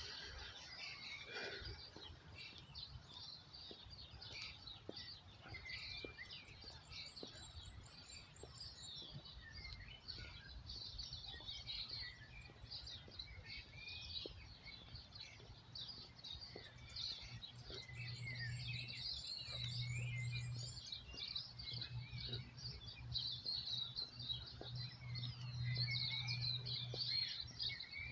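Several songbirds chirping and singing in dense, overlapping calls, with a high, falling trill twice. Under them runs a low, steady rumble that grows stronger in the second half.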